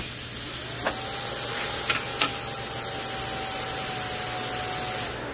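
Handheld plasma cutter cutting aluminium sheet: a steady loud hiss of air with a steady whistling tone over it and a few sharp crackles around one and two seconds in, cutting off near the end as the arc stops.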